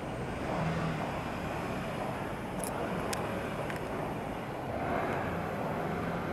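Street ambience: a steady hum of distant traffic, with three faint clicks about halfway through.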